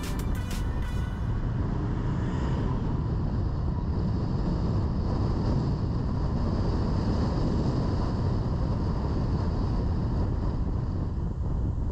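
Steady low rumble of road and wind noise from a car driving along. The tail of background music ends about a second in.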